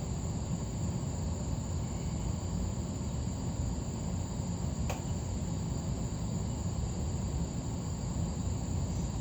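1985 Hunter Original ceiling fan, with its cast-iron 3-speed reversible motor and four solid wood blades, running steadily on low speed: an even low rumble with a thin steady high tone above it. One short click about five seconds in.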